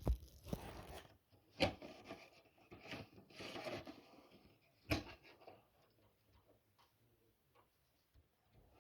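Smoke detector head being handled and seated back into its base: three sharp plastic clicks, near the start, about a second and a half in and about five seconds in, with rubbing and scraping between them, then little after the last click.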